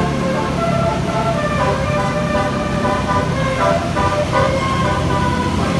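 Multi-tone 'telolet' bus horn playing a quick stepping tune of short notes over the low, steady running of the bus engine.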